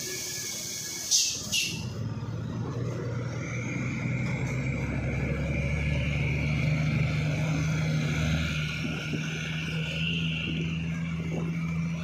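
Two short, sharp air hisses from a Mitsubishi Fuso truck's air brakes about a second in. Then its diesel engine pulls away under load as a steady low drone with a faint whine above it.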